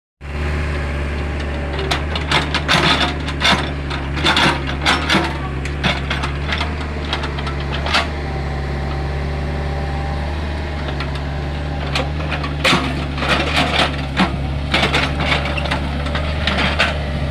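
Hitachi excavator's diesel engine running steadily, with clusters of sharp cracking and clattering as the bucket digs and breaks up dry, hard soil.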